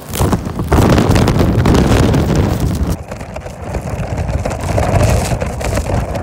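Strong, gusty wind buffeting the microphone in a snowstorm, a loud rumbling rush that is strongest for the first few seconds and then eases off.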